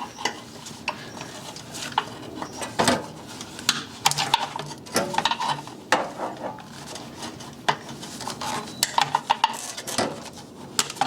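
Irregular sharp clicks and metallic clinks of side cutters snipping and working at the plastic retaining tabs of an ABS sensor wire harness connector.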